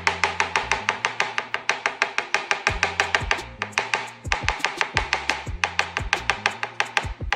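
Rapid, even knife chopping on a cutting board, about eight strokes a second, over background music with a bass line.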